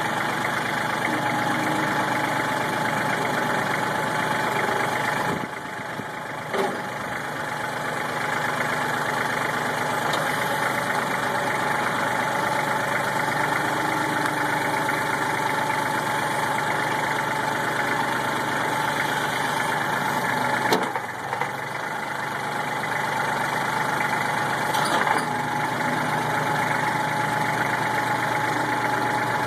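Kubota L3400 tractor's diesel engine running steadily, with a steady high whine over the engine note. The level dips briefly twice, about six seconds in and again about twenty seconds in.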